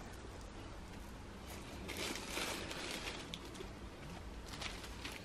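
Faint handling noise as a chain-strap handbag is set down into its box among tissue paper: a soft rustle about two seconds in, then a few light ticks near the end.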